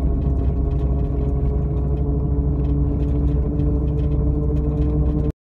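Jeep driving under throttle, heard from inside the cabin: steady engine and road rumble with a steady hum over it, the noise the owner suspects comes from the front driveshaft, a factory double-cardan shaft. The sound cuts off suddenly near the end.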